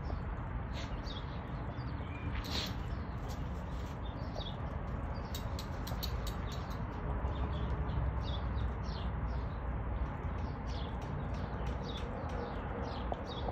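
Small birds chirping repeatedly, short high notes that slide downward, two or three a second, over a steady low rumble.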